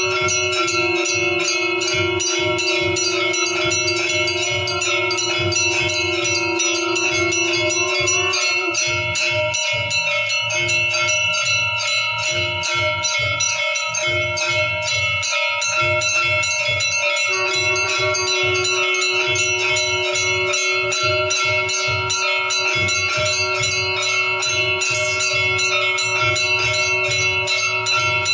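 Temple bells clanging rapidly and without pause during a Hindu aarti, with a drum beating fast underneath and a steady held tone for much of the time.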